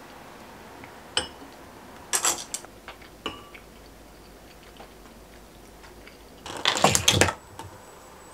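Metal spoon clinking and scraping against ceramic bowls during a meal: a few separate sharp clinks and a short clatter. Near the end comes a louder, longer burst of rustling noise.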